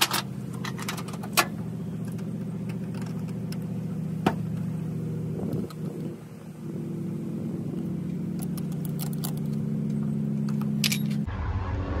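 A wrench clinks against a car battery's terminal clamp a few times as the battery is connected, over the steady hum of an idling engine.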